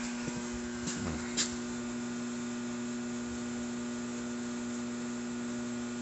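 Steady electrical buzz from an Autool LM706 refrigerant recovery machine switched to vacuum, with its vacuum pump never starting, a sign of the machine's fault. A faint click or two about a second in.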